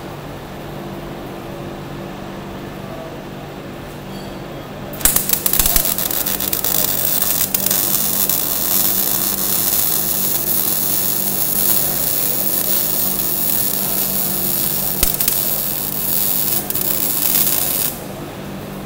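A steady hum for about five seconds, then a Lincoln Electric Power MIG welder's arc strikes and runs as a long, steady crackling sizzle that stops abruptly near the end. The welder says that holding the gun at an angle burned through the metal on this weld.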